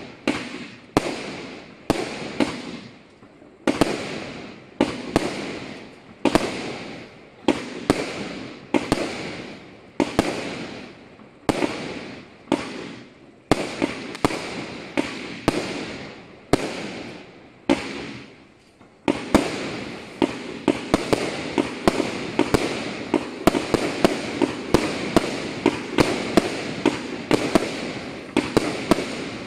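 Gemstone Fireworks Destroyer 80-shot barrage firing: sharp shots a little more than once a second, each followed by crackling stars. About two-thirds through, the shots come faster and overlap into a dense, continuous crackle.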